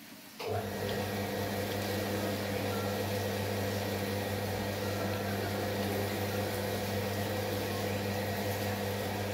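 Kitchen sink tap turned on about half a second in, water running steadily onto apricots being rinsed in a glass bowl, with a steady low hum under the running water.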